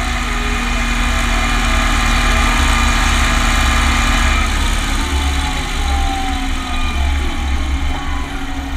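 Renault 120.14 tractor's diesel engine running under way, heard close to its vertical exhaust stack. About halfway through, the engine note drops a little as the tractor eases off.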